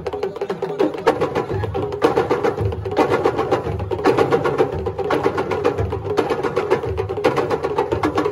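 Sabar drums playing a fast, dense rhythm of sharp strikes over recurring deeper drum beats.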